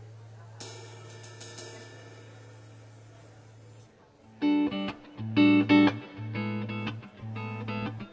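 Live rock band: a cymbal wash comes in about half a second in and dies away by about four seconds. Then the band starts up, with rhythmic guitar chords over bass notes.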